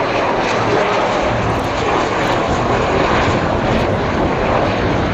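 A jet fighter flying past, its engine giving a loud, steady rushing noise.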